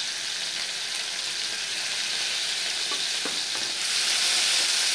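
Ginger-garlic paste and cumin seeds sizzling in hot oil in a kadai, a steady hiss. Near the end a spatula stirs the paste with a few light knocks, and the sizzle grows louder.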